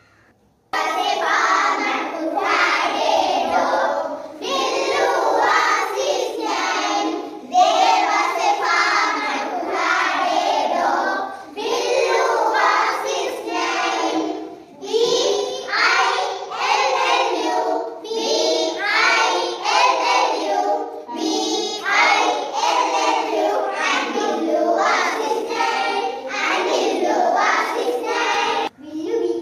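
A group of young girls singing a song together in chorus, starting after a short pause about a second in.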